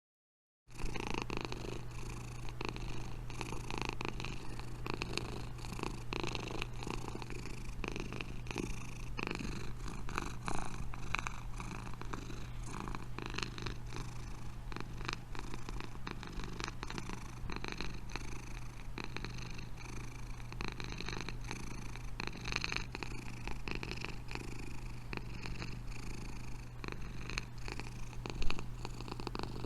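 Domestic cat purring close to the microphone, a steady continuous purr that cuts in abruptly under a second in. A brief louder bump sounds near the end.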